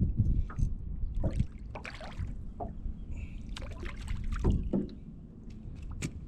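Wind buffeting the microphone in a strong low rumble, with irregular water splashes and knocks around a small john boat as a crappie is brought in.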